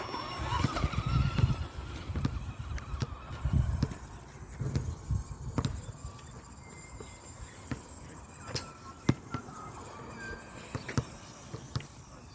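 Stock Blackzon Smyter MT RC monster truck driving off across grass, its brushed electric motor giving a faint rising whine at the start. Scattered sharp knocks and a heavy low rumble through the first half.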